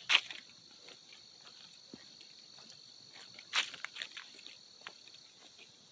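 A steady high-pitched insect chorus, with scattered crunches of footsteps in dry fall leaves; the two loudest crunches come right at the start and about three and a half seconds in.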